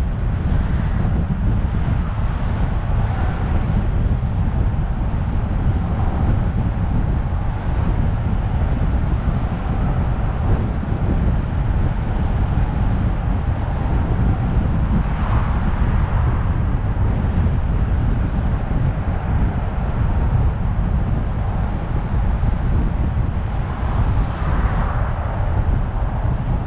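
Car driving along with a steady low rumble of road noise and wind buffeting the microphone. Traffic noise swells briefly about halfway through and again near the end.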